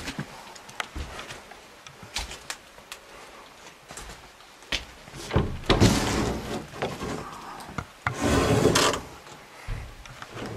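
Wooden cupboard or closet doors being handled: scattered knocks and clicks of wood and fittings, with rubbing and scraping as a door is moved, the longest and loudest about eight seconds in.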